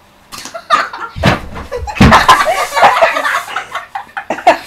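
A sharp slap of a hand on a bare belly, then heavy thuds as a boy slips and falls to the floor, followed by boys laughing and yelling.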